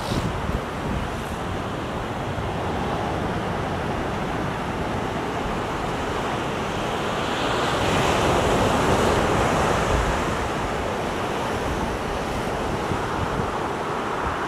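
Ocean surf washing up the beach in a steady rush, swelling louder about halfway through as a wave comes in, with wind buffeting the microphone.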